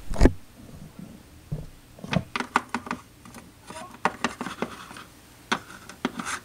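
A small plastic Littlest Pet Shop figure being tapped and shuffled across a plastic toy dollhouse floor: irregular light clicks and taps in little clusters, after a louder thump right at the start.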